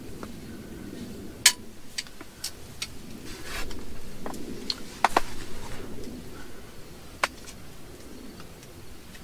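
Scattered sharp clicks and knocks, the loudest about a second and a half in, with a brief rustle midway: small gear being handled by hand.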